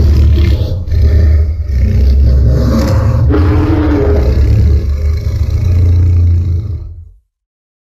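A custom Godzilla sound effect, a long loud roar with a heavy deep rumble beneath it, fading out about seven seconds in and followed by silence.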